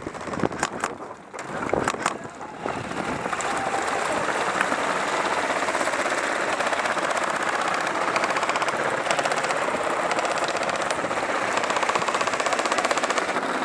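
Airsoft electric guns firing full-auto: a fast, continuous mechanical rattle that sets in about three seconds in and runs on steadily, after a few sharp clicks at the start.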